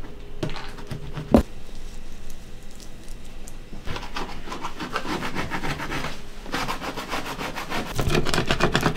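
A scrub pad rubbing and scraping over a grease-caked stovetop in quick back-and-forth strokes. There is a sharp knock about a second and a half in, and the scrubbing is louder and denser from about four seconds in.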